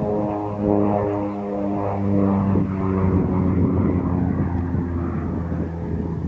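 OV-10 Bronco's twin turboprop engines and propellers droning steadily during a display pass, the tone dropping slightly in pitch about halfway through.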